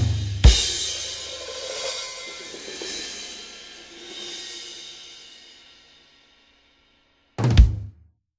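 Background music on drum kit: a drum hit with a crash cymbal ringing out and slowly fading over several seconds, then one more drum hit near the end before it goes quiet.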